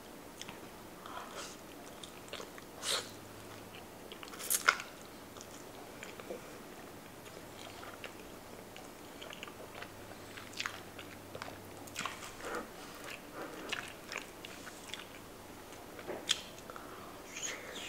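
Close-miked mukbang eating sounds: biting into and chewing rotisserie chicken, with scattered wet mouth clicks and smacks. The sharpest click comes about four and a half seconds in.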